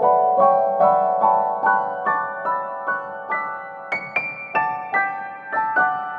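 Background music: a gentle piano-like keyboard melody, notes struck about two to three a second, with a few higher notes about four seconds in.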